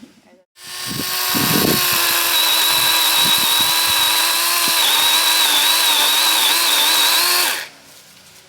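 Chainsaw cutting through a small tree: the saw runs at a steady high pitch for about seven seconds, with a few knocks as the cut begins, then stops suddenly.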